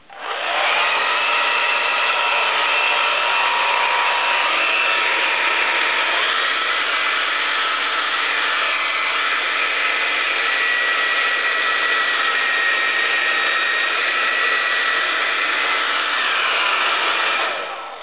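Handheld hair dryer switched on and running steadily, its fan motor and blowing air making an even rush with a faint whine. It is switched off near the end and winds down.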